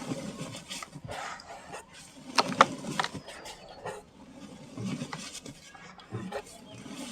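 Dry sand-cement chunks crumbling and crunching, with irregular gritty crackles and a louder cluster of crunches about two and a half seconds in.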